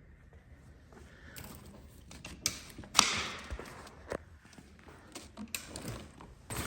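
Handling of a newly unboxed paramotor and its packing: scattered clicks, creaks and knocks, with one sharp knock about three seconds in followed by a rustle that fades out.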